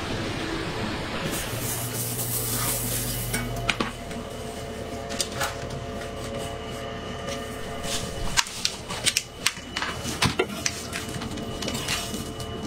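Metal spatula clinking and scraping against an aluminium baking tray as baked pastries are lifted off it: a string of short sharp clicks and knocks over a steady kitchen hum, after a brief rush of noise about two seconds in.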